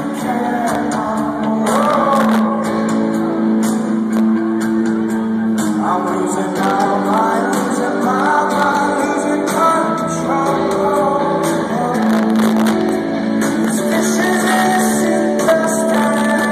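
Rock band playing live in a large hall: a sung melody over guitar and drums, loud and steady.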